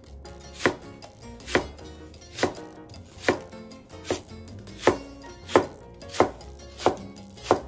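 Kitchen knife cutting through peeled nagaimo (Chinese yam) down onto a wooden cutting board: about ten evenly spaced knocks, a little more than one a second.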